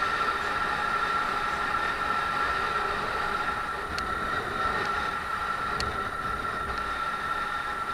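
Wind rushing over the camera on a moving Honda MSX125 motorcycle, with the bike's small single-cylinder engine running steadily underneath. There are two faint clicks, about four and six seconds in.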